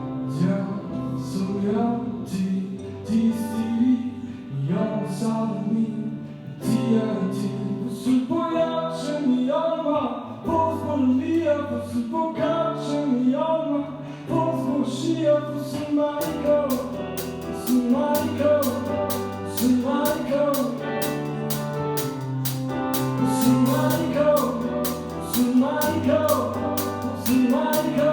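Live song: a male singer-songwriter sings, in Romansh, over a steady bass line and accompanying instruments. About halfway through, a quick steady ticking percussion beat comes in.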